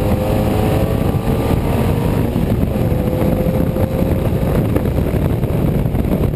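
Unipower GT race car's mid-mounted BMC A-series four-cylinder engine running steadily at speed, heard from inside the cockpit under a heavy rumble of road and wind noise.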